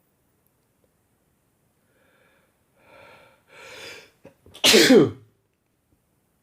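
A man sneezes once: two catching 'ah' breaths build up about three seconds in, then a loud sneeze with the voice sliding down in pitch.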